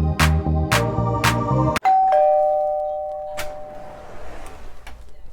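Background music with a steady beat stops abruptly, and a two-note ding-dong doorbell chime, a higher note then a lower one, rings and fades away.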